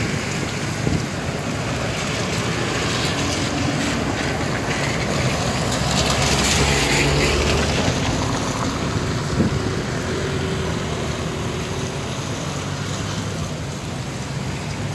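Steady storm wind on the microphone with traffic noise. A car passes on the wet road, loudest about seven seconds in.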